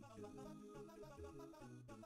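Quiet background music: a tune with a moving bass line.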